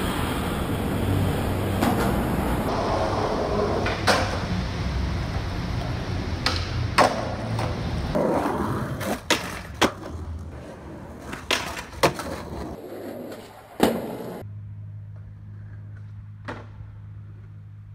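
Skateboard wheels rolling over rough concrete, broken by a series of sharp pops and clacks of the board being popped and landed. In the last few seconds the rolling gives way to a steady low hum with one faint click.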